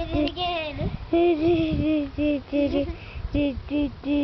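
A child's voice singing a tune in a run of short notes, with a longer wavering phrase about a second in.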